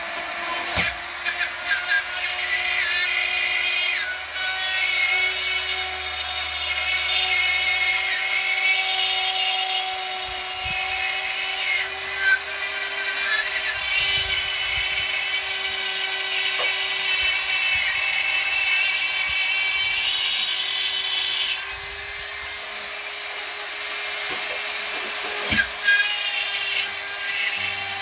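Handheld rotary cut-out tool (spiral saw) running at full speed, its bit routing through ceiling drywall as it is guided around an edge: a steady motor whine with a high, gritty cutting hiss that eases off about three-quarters of the way through while the motor keeps running. A few short knocks of the tool against the board.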